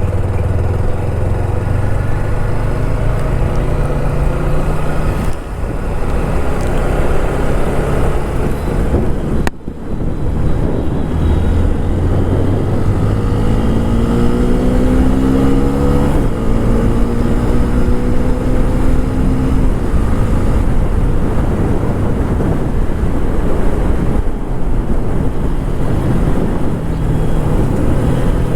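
TVS Apache RTR 160 4V's single-cylinder engine under way with stock exhaust, pulling through the gears. The engine note climbs and then drops at each upshift, twice in the middle, under a steady rush of wind and road noise.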